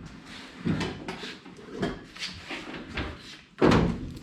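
Handling noises: a run of light knocks and rustles, with a louder clunk and clatter about three and a half seconds in.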